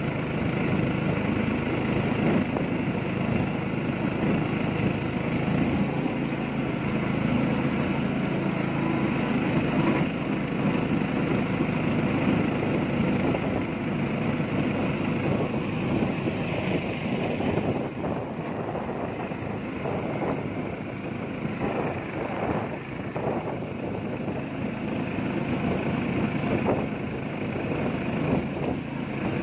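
A small boat's engine running steadily at an even pitch as the boat travels through the water.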